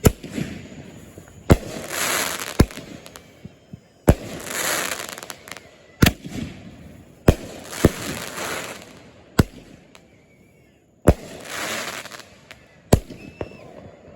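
Consumer fireworks going off in a series: about nine sharp bangs a second or two apart, several followed by a short hissing crackle.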